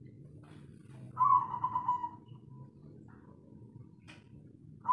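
Spotted dove cooing: a loud, burred coo about a second in that trails off, a short weaker note after it, and the next coo starting near the end. A brief click a little after four seconds.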